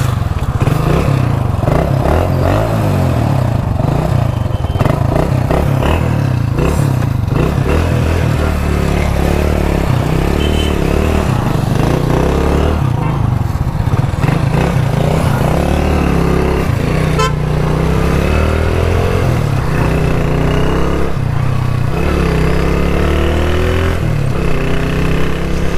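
Modified Hero Honda Splendor's single-cylinder four-stroke engine running loud under way, its revs rising again and again as it pulls away and shifts up through the gears.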